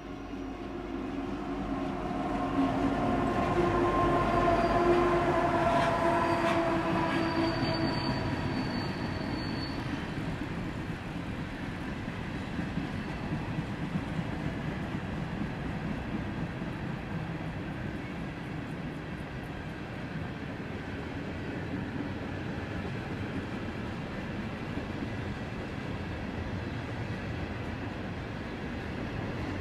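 A Norfolk Southern diesel-hauled freight train passing close by. The locomotives go past loudest about four to six seconds in, with a steady engine tone, and a brief high wheel squeal follows. Then the freight cars roll past with a steady rolling noise.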